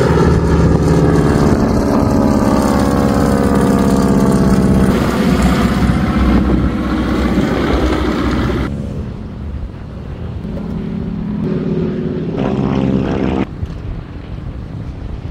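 Propeller plane flying low overhead, its engine drone loud and sliding in pitch as it passes. The sound cuts off suddenly about nine seconds in. The same engine note comes back briefly near the end and stops abruptly again.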